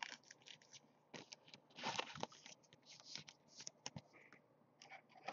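Faint, scattered clicks and scrapes of hands handling a trading card and a clear plastic card holder.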